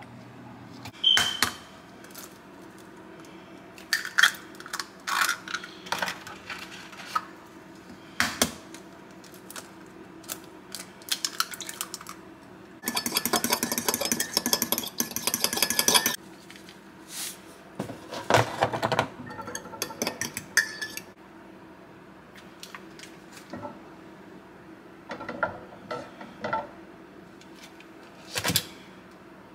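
Scattered clinks of metal cutlery against ceramic mugs and dishes, with about three seconds of rapid fork-against-bowl clicking near the middle as eggs are beaten in a ceramic bowl.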